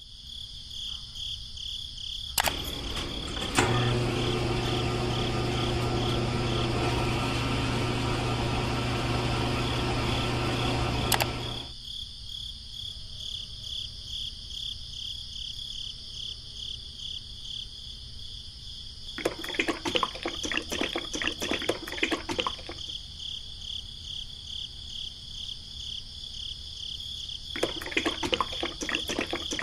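The small electric motor of a miniature cement mixer starts a few seconds in and runs with a steady low hum for about eight seconds, then stops. Later come two stretches of wet, sloshing noise as mixed cement is tipped from a small plastic bucket, the second near the end.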